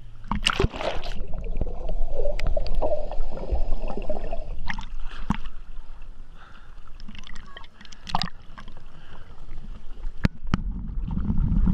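Lake water sloshing and gurgling around a camera held right at the surface beside a boat's hull, with scattered sharp knocks and splashes.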